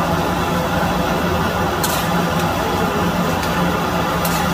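Steady roar of a gas burner under a karahi of mutton simmering in its gravy, with two short scrapes of a metal spatula against the pan, about two seconds in and again near the end.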